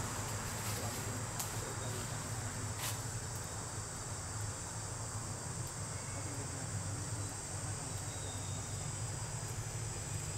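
Steady high-pitched insect chorus from crickets in the surrounding forest, over a low steady hum, with a couple of faint clicks in the first three seconds.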